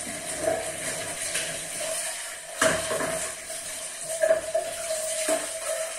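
Kitchen sounds: a steady hiss like running water from a tap, with a few knocks of dishes and pots.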